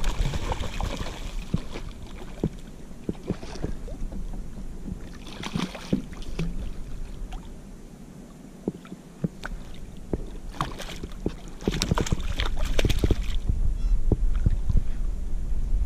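Scattered small knocks and clicks on a kayak, with water movement around the hull. A louder low rumble comes in about three quarters of the way through.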